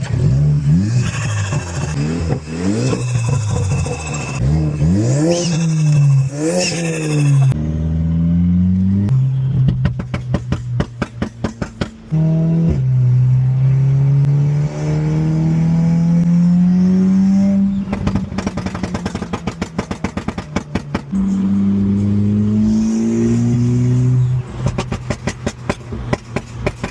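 Volkswagen Mk7 Golf R's stage-2-tuned turbocharged four-cylinder engine, first revving up and down quickly several times, then pulling with a steadily rising pitch. Each time the throttle closes, the turbo flutters in a rapid chatter.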